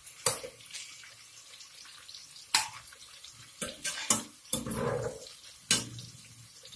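Slotted steel spoon knocking and scraping against a steel pot while fried okra is lifted out of hot oil: several sharp metal clinks over a steady sizzle of the frying oil.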